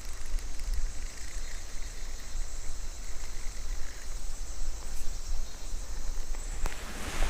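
Insects droning steadily in high-pitched summer chorus, over a low, fluctuating rumble. A sharp click sounds near the end.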